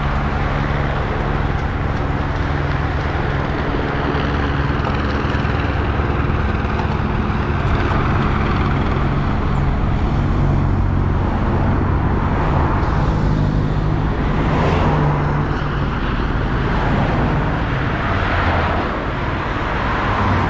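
The back of a road-race peloton whirring past, then the race convoy of team cars and motorcycles driving by one after another, engines running and tyres on asphalt, over a steady low engine drone; the vehicle noise swells several times as cars pass.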